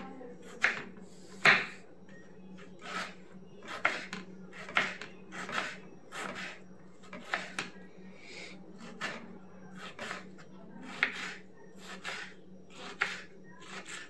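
Kitchen knife dicing tomatoes on a wooden chopping board: a sharp knock of the blade on the board about once a second, over a steady low hum.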